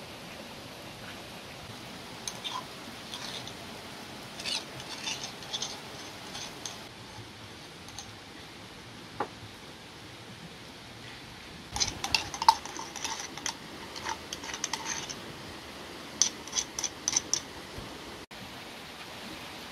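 Small clay pots clinking and knocking as they are picked up, set down and scraped out. The clinks come in several short flurries, the busiest and loudest about twelve seconds in, over a steady background hiss.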